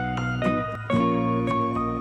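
Background instrumental music: a gentle melody of separate notes, about two a second.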